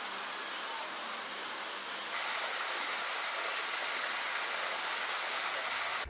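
Steady, high-pitched chorus of insects, an even shrill drone over a hiss, growing brighter and louder about two seconds in.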